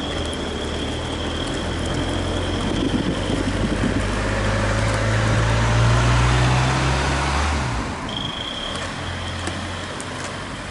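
A car's engine running close by. Its pitch rises as it speeds up for a few seconds, then it drops away suddenly about eight seconds in. Steady rolling and wind noise runs underneath, with a thin, steady high whine that fades out and comes back near the end.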